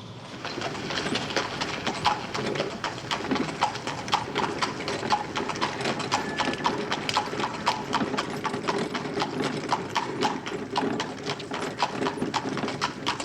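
Horse's hooves clip-clopping in a steady, even rhythm of several strikes a second.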